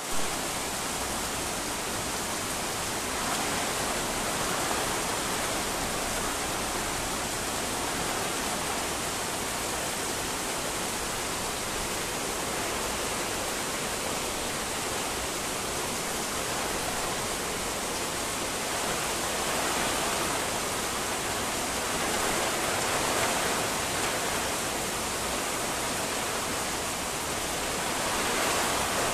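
Heavy rain pouring steadily on trees and foliage, with strong wind in the trees; the noise swells a few times as gusts come through.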